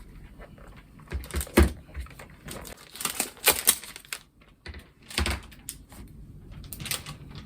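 Hands unboxing a keyboard: irregular knocks, scrapes and rustles of the box and packaging being handled, with a few sharper knocks.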